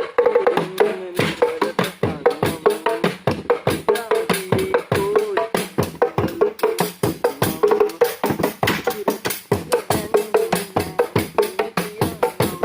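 Music with fast, steady percussion strokes, about four to five a second, under a wavering melody line.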